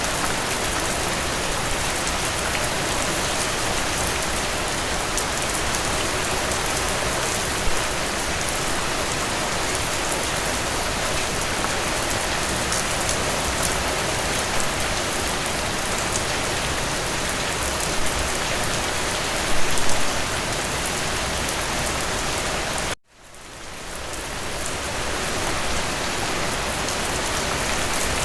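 Steady rain falling, with a couple of louder drops or splashes. About three-quarters of the way through it cuts out abruptly and fades back up over a couple of seconds, like an edit or loop point in the recording.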